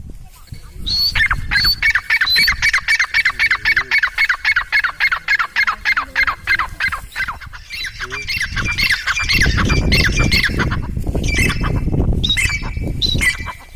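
A bird calling in a fast run of short, sharp, downward-slurred notes, about six a second, for several seconds, then more scattered calls near the end. A loud low rumble rises under the calls in the second half.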